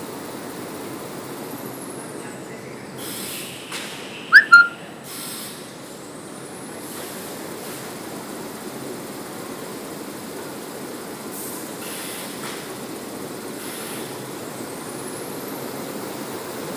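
Toilet-paper production line running: a steady mechanical hum and rush of conveyors and converting machines. About four seconds in there is a short, loud, high-pitched sound with two quick peaks, together with a few brief knocks.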